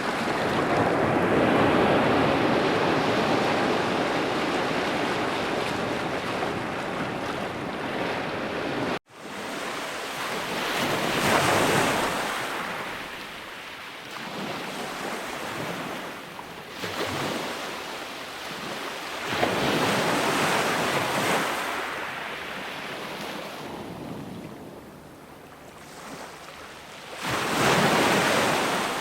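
Ocean surf breaking and washing in: a steady rush of waves for about nine seconds, cut off abruptly, then separate waves surging in and drawing back every few seconds, the last big one near the end.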